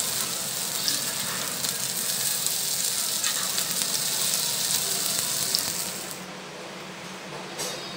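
Spinach and lentil fritters shallow-frying in oil in a nonstick pan, the oil sizzling and crackling steadily. The sizzle cuts off suddenly about six seconds in.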